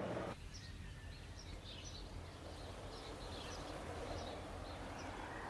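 Faint outdoor background ambience: a low steady hum with scattered faint, short bird chirps.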